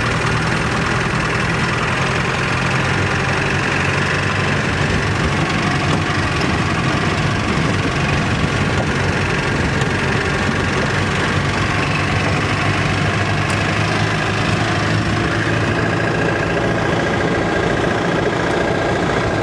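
Vehicle engine running steadily while driving over a rough dirt road, heard from on board as an even, unbroken drone.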